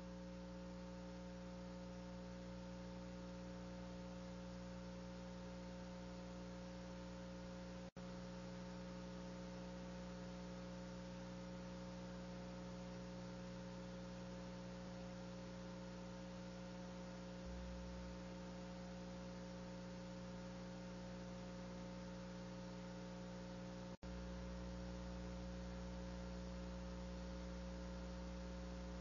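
Faint, steady electrical hum with a low hiss on the audio line, and no other sound. It drops out for an instant twice, about 8 seconds in and again near 24 seconds.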